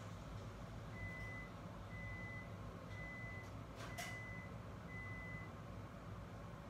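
Five evenly spaced electronic beeps at one pitch, about one a second and each about half a second long, with a single sharp click around the fourth beep.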